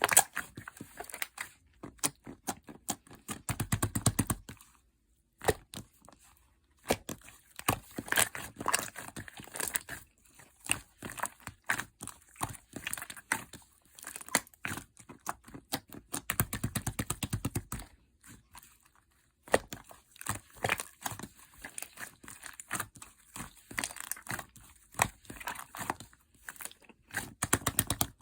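Slime being kneaded and pressed by hand, giving dense runs of sticky clicks and crackles with a couple of short pauses.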